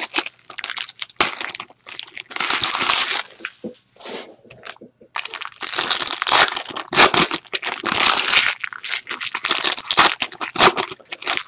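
Foil trading-card pack wrappers being torn open and crumpled by hand: irregular bursts of crinkling and crackling, with a short lull about four to five seconds in.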